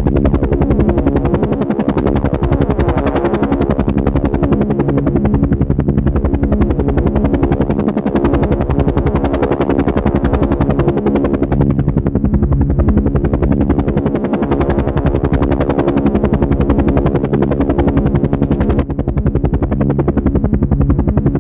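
Boeing CH-47 Chinook tandem-rotor helicopter hovering close overhead, its rotor blades beating in a loud, fast, steady chop.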